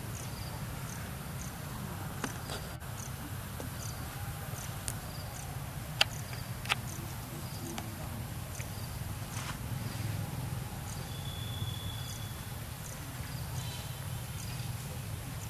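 Insects chirping in short, evenly repeated high calls over a steady low rumble, with two sharp clicks about six seconds in and a brief high whistle-like tone near two-thirds of the way through.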